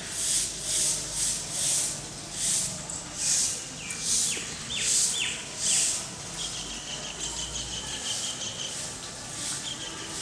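Outdoor ambience of birds and insects: a high rhythmic hiss pulsing about twice a second until about six seconds in, a few short bird chirps around four to five seconds, then a steady high trill for about two seconds.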